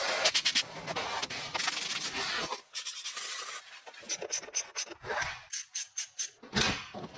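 Hand scraping or filing on rusty metal: a quick run of rasping strokes, then a short pause and slower single strokes.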